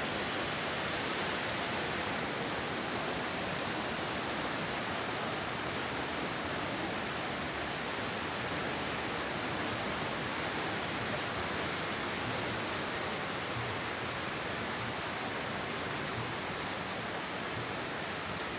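Steady, unbroken rushing of the Swat River in flood, fast floodwater churning through the valley.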